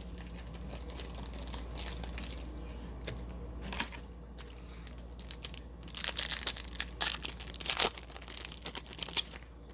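Crinkling and tearing of a trading card pack wrapper being opened, with irregular crackles that are busiest about six to eight seconds in.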